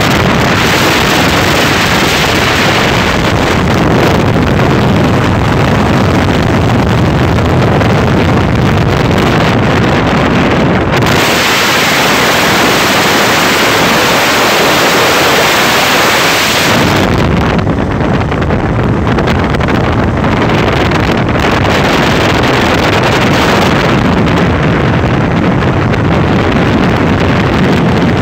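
Loud, continuous wind buffeting the microphone during a fast ride, with a rumble of vehicle noise beneath it. From about 11 to 17 seconds in the sound turns to a brighter hiss with less rumble, then the rumble comes back.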